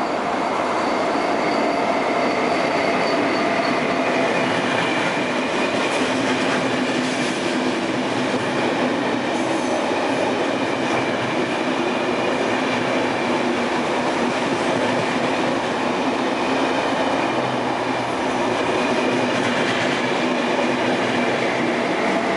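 KTT double-deck electric through train running through a station at speed: a loud, steady rush of wheel and running noise as the coaches pass, with a thin high whine in the first few seconds.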